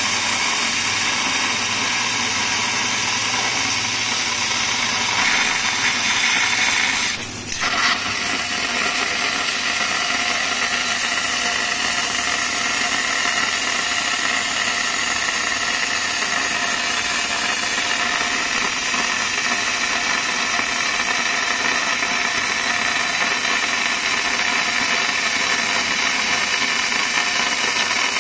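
20 kW fiber laser cutter (IPG source) cutting 50 mm mild steel with oxygen assist gas: a steady, loud hiss of the gas jet and burning steel through the cut. It dips briefly about seven seconds in, then carries on unchanged.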